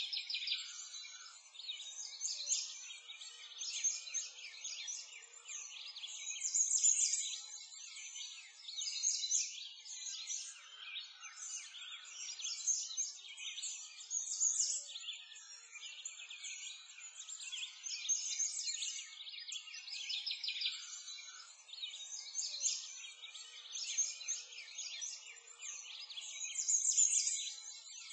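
A dense chorus of many small songbirds chirping and singing, with calls overlapping without a break. It is all high-pitched, with nothing low underneath.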